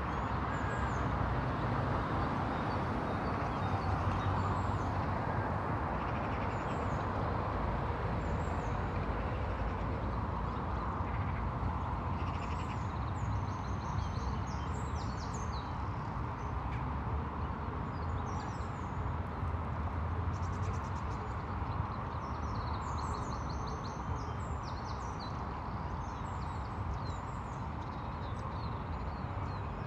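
Outdoor daytime ambience: a steady hum of distant road traffic, with small birds chirping at intervals over it, busiest in the middle and near the end.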